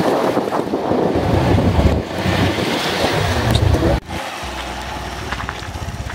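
Motorcycle engine running on the move, with wind buffeting the microphone; about four seconds in the sound cuts sharply to a quieter, steady engine hum.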